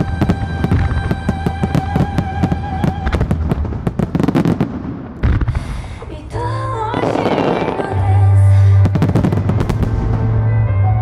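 Aerial fireworks shells bursting and crackling in quick succession, with a heavy burst about five seconds in and another dense flurry of cracks near the end, over music playing along with the show.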